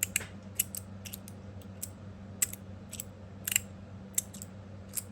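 Copper and stainless steel magnetic fidget slider being slid and snapped, its magnet-held plates clicking against each other in about a dozen sharp, irregular clicks. The clicking is not too loud. A steady low hum runs underneath.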